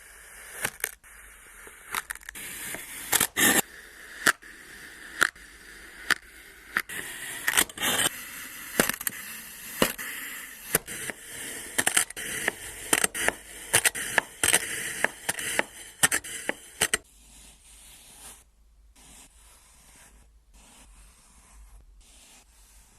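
Kinetic sand being cut: a run of crisp crunches and scrapes, about one a second, over a steady gritty hiss. The sounds become much quieter about seventeen seconds in.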